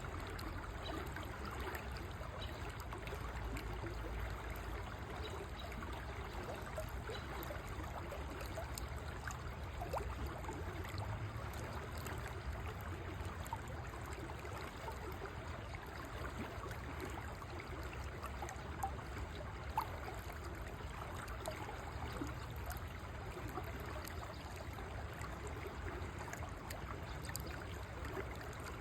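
River water flowing steadily, a continuous rushing with scattered small trickling sounds. Two brief louder ticks stand out about two-thirds of the way through.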